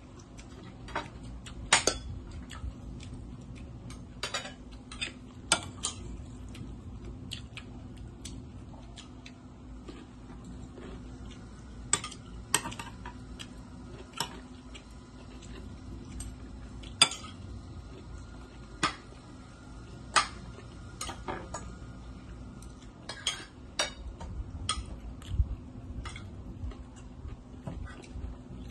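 Spoons and plates clinking and tapping irregularly during a meal, scattered sharp clicks over a steady low hum.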